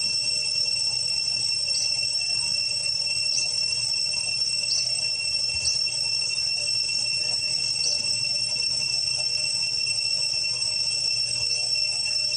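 Steady high-pitched drone of forest insects, with short high chirps every second or two over it.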